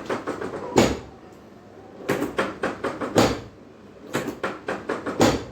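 Quick knocks or thumps coming in bursts of four to six rapid strikes, three bursts about two seconds apart.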